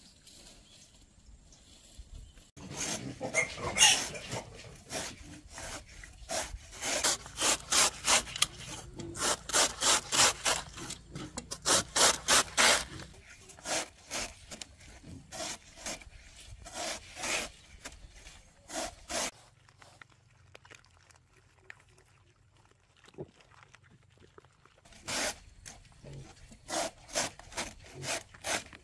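Rhythmic rasping, scraping strokes, roughly two to three a second, back and forth like sawing or filing. They begin a couple of seconds in, pause for several seconds about two-thirds of the way through, then start again.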